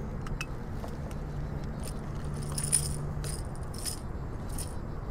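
Metal pliers and a small lure's hooks clinking and jingling, about eight times in short bursts, while the lure is worked free from a white bass's mouth. A steady low rumble runs underneath.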